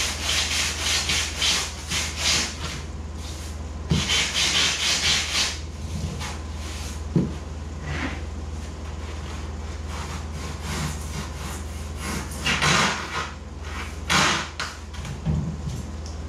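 Sandpaper on a hand block scraping over rigid polystyrene foam insulation board in quick back-and-forth strokes, shaping a foam kayak hull. The strokes run for the first two seconds or so and again about four seconds in, then give way to a few knocks and short scrapes, over a steady low hum.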